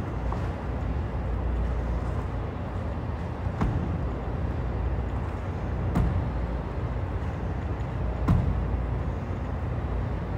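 Dull impacts on a hardwood gym floor, three of them about two and a half seconds apart, from a dumbbell power clean and burpee workout, over a steady low rumble.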